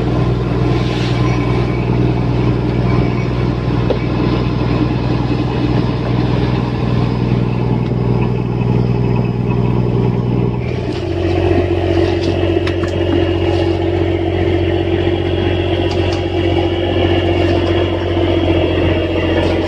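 Fishing boat's engine running steadily; about eleven seconds in its note drops to a lower pitch and a higher whine comes in.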